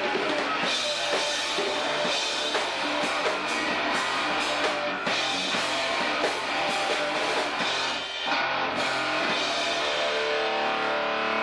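A rock band playing live: electric guitar and bass over a drum kit. Near the end the drum hits stop and held notes ring on.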